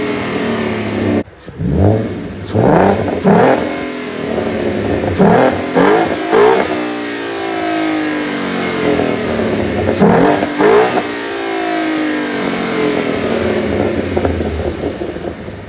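A 2014 Ford Mustang's 3.7-litre V6 breathing through a Roush cold air intake, revved in a series of blips. Each climbs sharply and then falls away slowly. The sound drops out briefly about a second in.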